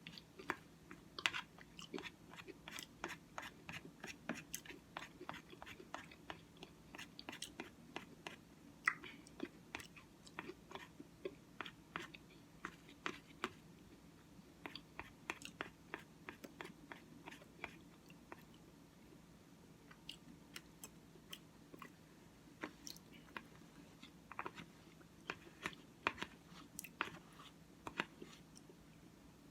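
Close-miked chewing and crunching of Cookie Crisp cereal in oatmeal: a quick run of sharp, wet mouth clicks and crunches, thinning out for a moment past the middle, over a low steady hum.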